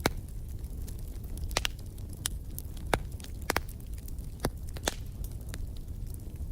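Wood fire crackling in a fireplace: irregular sharp pops and snaps, about eight of them, over a steady low rumble of the burning fire.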